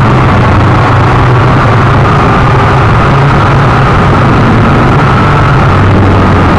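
Syma X8C quadcopter's brushed motors and propellers whirring steadily, recorded close up by the onboard camera's microphone. A high motor whine rises slightly partway through over a low hum and rushing noise.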